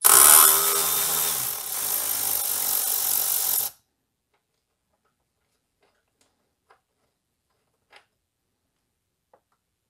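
Cordless electric ratchet running for about three and a half seconds as it backs out a T25 Torx screw, then stopping abruptly. A few faint clicks follow as the loose screw is handled.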